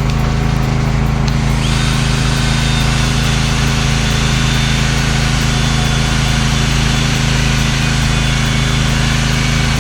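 Power sander running steadily on an epoxy-coated oak rail. About a second and a half in, a loud hiss of the pad working the surface joins the motor hum, with a faint high whine over it.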